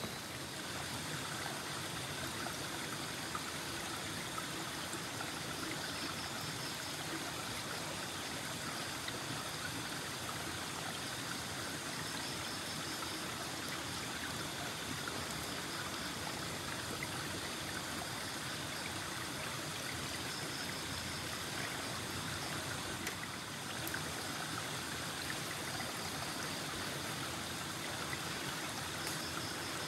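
Shallow river water running steadily among boulders, a constant even rushing.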